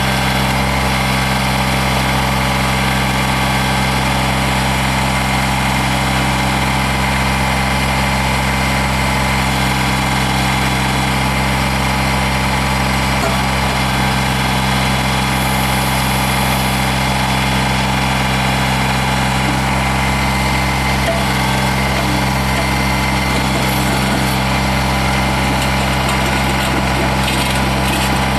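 Kubota BX22 subcompact tractor's three-cylinder diesel engine running at a steady speed, with no change in revs.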